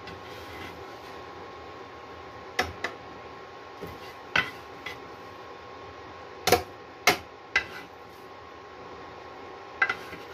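Spatula knocking and scraping against a small square nonstick frying pan while scrambled egg is stirred and scooped: about ten separate sharp clacks at uneven intervals, the two loudest about two-thirds of the way through.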